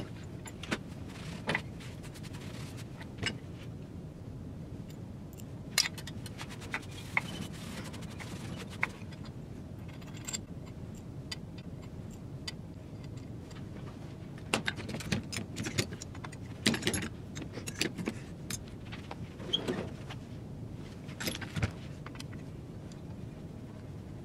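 Small steel parts and hand tools clinking and tapping on a steel base plate as they are picked up and set down. Scattered clicks, with a busier run of clinks about two-thirds of the way through.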